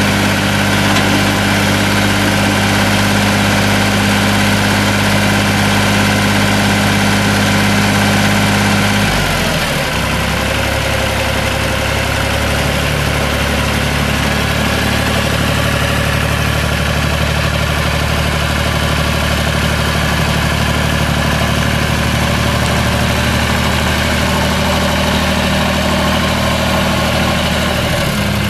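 Three-cylinder diesel engine of a 2005 Lenar LE354 tractor running steadily. About nine seconds in, the engine speed drops to a lower, slightly quieter steady note, and it rises again near the end.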